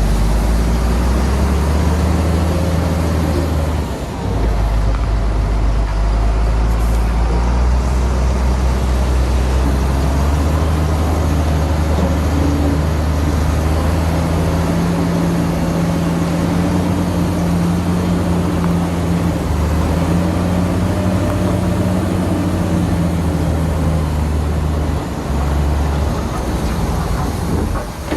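Heavy diesel engine of earthmoving machinery running steadily under load, with a deep hum. The sound dips briefly about four seconds in and again near the end.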